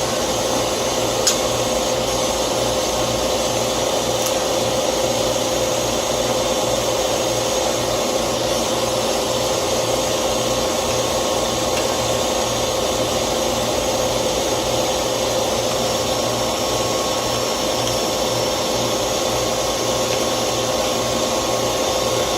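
Steady motor whir with rushing air and a constant hum, unchanging throughout, with one light click about a second in.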